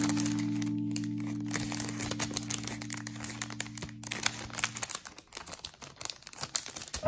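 Clear plastic packaging bag crinkling as a carded enamel pin is handled and slid into it, in many small crackles. A held background-music chord fades out and stops about five seconds in.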